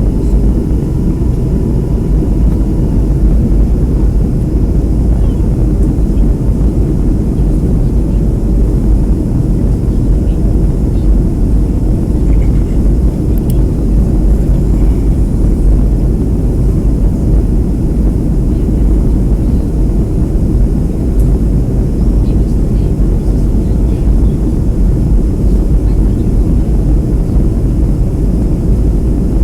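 Steady cabin noise of a Boeing 757 in flight, jet engines and airflow heard from inside the passenger cabin: a loud, even, deep rumble with no changes.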